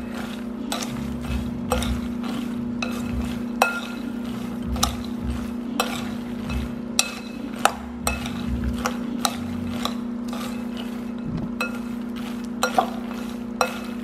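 Metal spoon stirring roasted peanuts in a glass bowl: irregular clinks of spoon and nuts against the glass, over a steady low hum from a microwave oven running.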